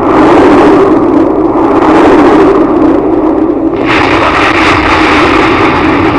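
Asteroid impact explosion sound effect: a loud, noisy roar that starts suddenly and grows brighter and hissier about four seconds in.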